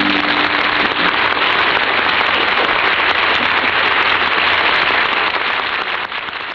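Studio audience applauding at the end of the song, a dense steady clapping that fades near the end, with the song's last low note dying away in the first second.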